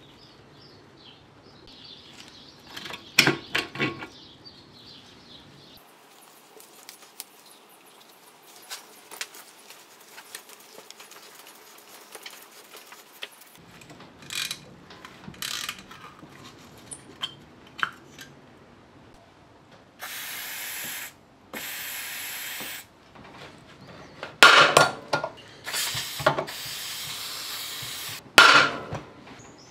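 Hand-tool work on a rusty tiller engine: a socket ratchet clicking as bolts are undone, two steady hisses about a second each, then loud sharp metal knocks and clanks near the end as a gear puller is worked on the seized drive pulley.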